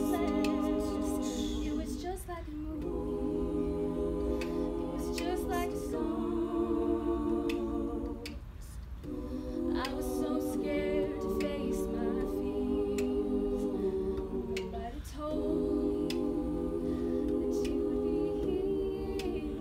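All-female a cappella group singing in close harmony: backing voices hold sustained chords while a higher lead voice wavers above them. The chords come in phrases with short breaks between them.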